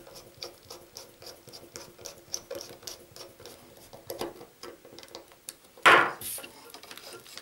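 Small screwdriver turning the lid screw of a plastic BT78A telephone junction box: a run of small irregular clicks and scraping as the screw is driven in. About six seconds in there is one louder knock as the box is set down on a wooden table.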